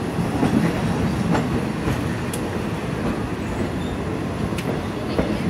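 Passenger train rolling along the track, heard from aboard: a steady rumble with a few sharp clicks from the wheels.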